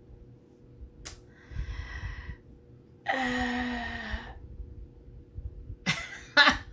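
A woman breathes out, then gives a long voiced sigh of frustration about three seconds in, one steady held pitch with breath over it. A small click comes about a second in.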